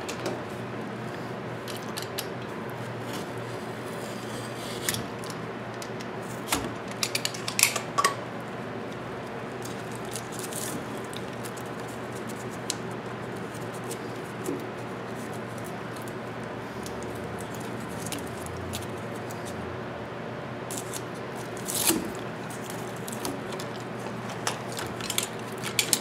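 Scattered rustles and clicks of stripped electrical cable being handled and pulled through a plastic outlet box, the conductors rubbing and tapping against each other and the box, over a steady low hum.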